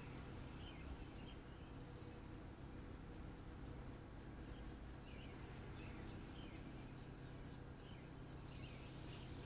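Steady low electrical hum from a 50 kW DC fast charger delivering charge, with short bird chirps several times over it.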